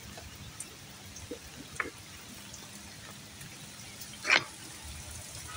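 Steady rain with scattered drips, and one short, louder sound about four seconds in.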